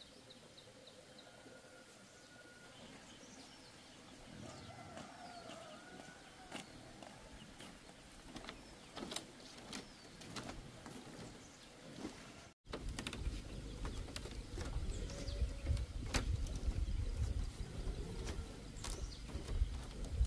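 Birds chirping over rural outdoor ambience, with scattered sharp clicks and knocks. About two-thirds of the way through, a brief dropout gives way to a low rumble and more frequent knocks.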